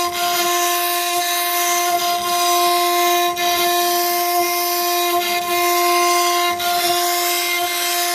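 CNC router spindle running at a steady high speed as its bit engraves glass: a constant pitched whine over a continuous hiss.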